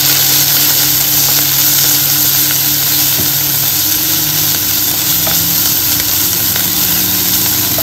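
Garlic, onion and grated ginger sizzling steadily in hot oil in a nonstick saucepan, stirred and scraped with a wooden spatula, over a low steady hum.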